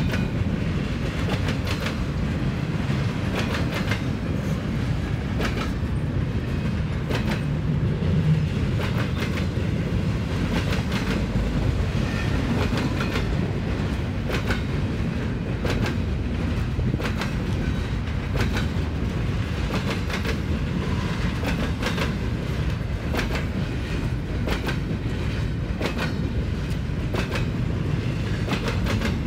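Double-stack intermodal container train rolling past, its freight car wheels banging over the rail crossing diamonds in frequent sharp clacks over a steady low rumble.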